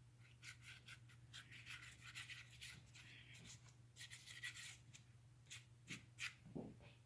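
Paint being stroked and dabbed onto a canvas textured with modeling paste: a quick, irregular run of short, faint, scratchy strokes.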